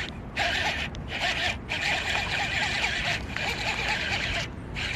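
Fishing reel being cranked to retrieve a lure: a steady whirring buzz broken by short pauses between turns of the handle.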